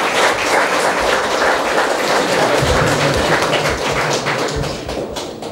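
Audience applauding, dense clapping that dies down near the end.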